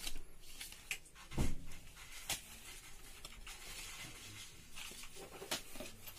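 Paper and foil-card gift envelopes being handled: soft rustling with a few short taps and crinkles, the loudest about a second and a half in.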